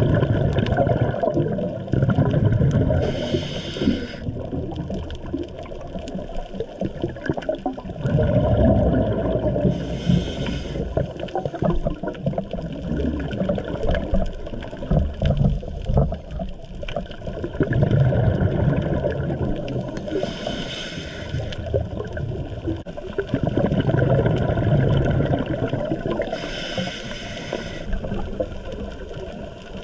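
Scuba diver breathing through a regulator underwater: four short hissing inhalations, with longer low bubbling rumbles of exhaled air between them.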